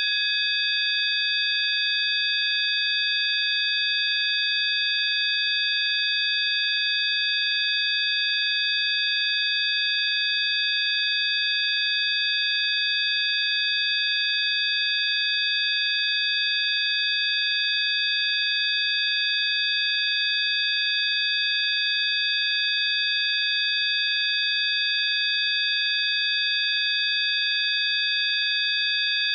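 Electronically generated 'healing frequency' tones: several high, pure sine tones sounding together as one steady chord, with a faint hiss around them, held without any change.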